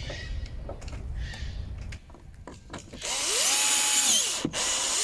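Cordless drill-driver spinning up, running for about a second and winding down as it drives a screw into a roof-bar mount under a plywood platform. Before it, a couple of short rubbing and knocking sounds.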